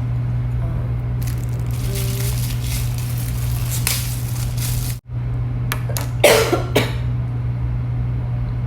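Two quick dry coughs from a woman about six seconds in, over a steady low hum. Before them come a few seconds of rustling handling noise, broken off by a brief drop to silence.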